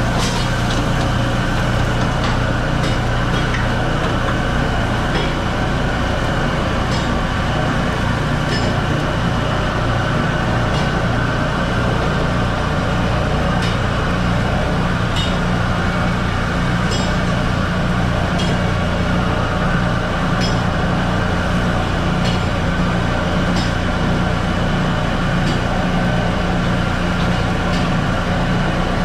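Commercial gas wok burners running at high flame, a steady, even roar, with irregular sharp clicks every second or two.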